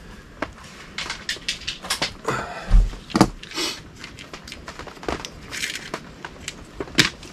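Hands handling small carp-rig tackle over a plastic tray: scattered light clicks and short rustles, with one dull knock a little under three seconds in.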